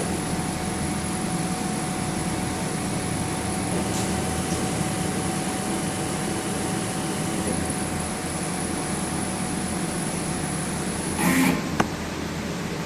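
Homemade CNC machine running a cutting program: a steady mechanical hum with a constant whine from its motors, then a brief louder rush and a single click near the end.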